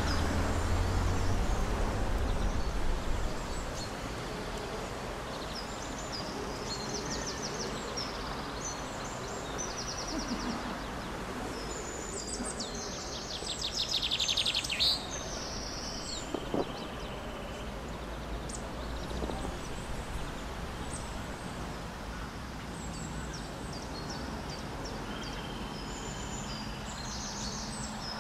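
Small birds chirping and singing in short, repeated high phrases over a steady outdoor background hiss, with one louder trilled song about fourteen seconds in. A low vehicle rumble fades out in the first three seconds.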